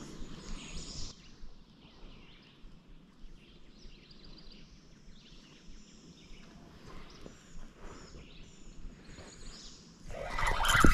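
Quiet riverside ambience with faint scattered bird chirps. About ten seconds in, a much louder rush of noise starts abruptly.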